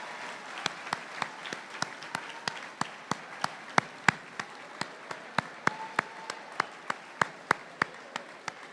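Audience applauding, with one pair of hands near the microphone clapping sharply and steadily about three times a second over softer clapping.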